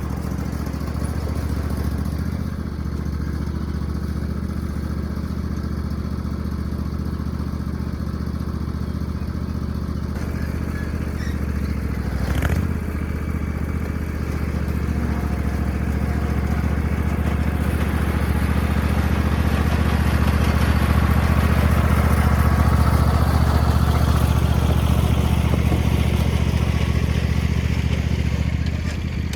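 A small engine running steadily, growing louder after about fifteen seconds and easing off near the end, with a single sharp knock about twelve seconds in.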